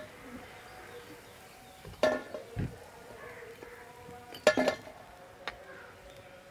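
Steel ladle scraping and clinking against a metal kadhai and a steel plate as fried pakoras are scooped out of the oil. The loudest clatters come about two seconds in and at about four and a half seconds, with a light tick just after.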